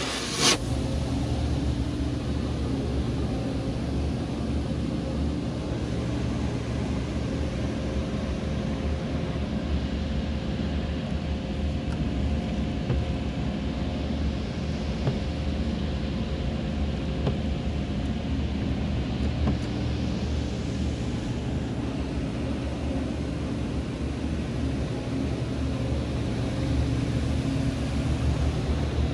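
Mark VII GT-300 automatic car wash running: a steady low rumble with a hiss of spraying water and a held hum that stops about two-thirds of the way through. A single knock comes just after it starts.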